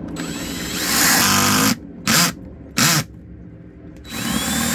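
Cordless drill with a twist bit drilling a hole through the boat's cabin ceiling. A long run of about a second and a half with the motor whine rising, two short trigger blips, then a second run near the end.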